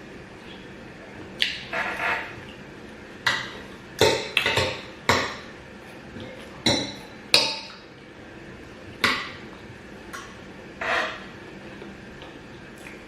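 Cutlery clinking and scraping against a plate while eating gari and beans: about a dozen sharp, irregular clinks, a few of them ringing briefly.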